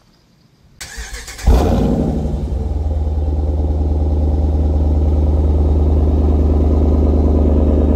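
5.7L Hemi V8 of a Dodge Durango R/T starting through an AWE Touring Edition exhaust: it cranks about a second in, catches with a brief flare and settles into a steady, deep idle.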